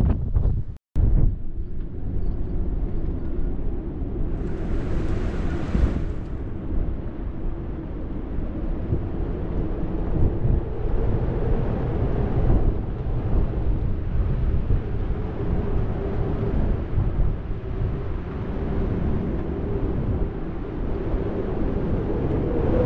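Wind and sea noise aboard a sailing yacht under way in rough water: a steady rumble with a constant low drone, and a brief hiss about five seconds in.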